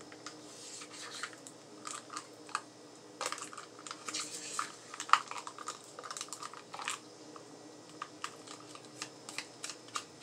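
Spoon scraping the last of the sour cream out of its container: irregular short scratches and light clicks.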